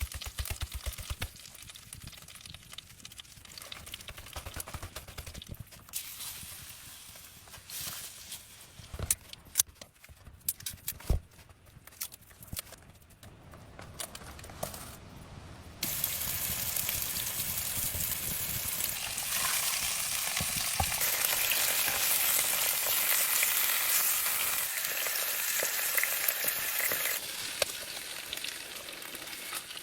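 Scattered light clicks and knocks, then about halfway through a steady sizzling hiss starts abruptly and runs for about ten seconds before dropping away, like food frying in a hot pan over a campfire.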